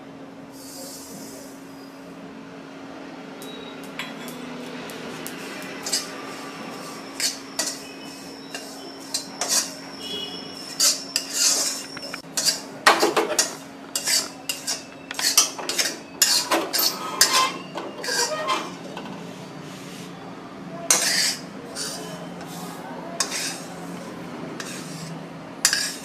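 Steel spatula scraping and clinking against an iron kadhai while stirring a dry, granular flour mixture, in many quick irregular strokes that grow busier after the first few seconds. A brief hiss of the powder being poured into the pan comes about a second in, and a steady low hum runs underneath.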